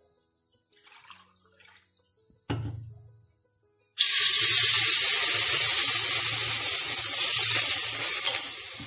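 Water poured into a hot pressure cooker onto broken wheat roasted in ghee. It starts suddenly about four seconds in and hisses loudly as it hits the hot metal and turns to steam, then eases off near the end. A single knock comes before it.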